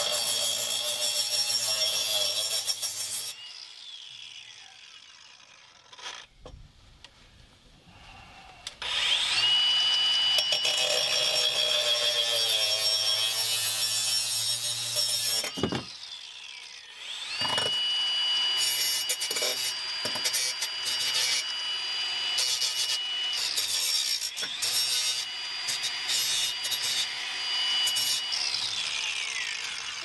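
Cordless angle grinder cutting through the steel arms of a wall-mount bracket in three runs separated by pauses. Each run starts with a rising whine as the motor spins up and ends with a falling whine as it winds down.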